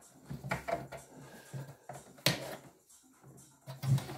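Handling noise of XLR patch cables: a few sharp clicks and knocks as the metal connectors are handled and plugged into a rack patch panel.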